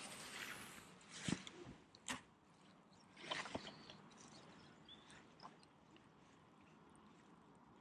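Baitcasting rod and reel being handled during a retrieve: a few sharp clicks and knocks in the first few seconds, then near quiet.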